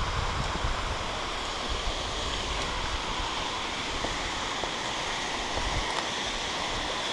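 Waterfall rushing steadily, with a low rumble underneath that dies away about six seconds in.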